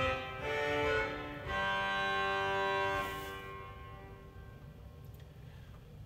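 Pipe organ playing on its Vox Humana reed stop: three held chords, the last sustained about two seconds, then dying away in the reverberation.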